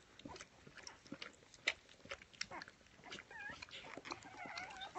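Newborn golden retriever puppies nursing: faint wet clicks and smacks, and about three seconds in, thin squeaky whimpers that waver in pitch.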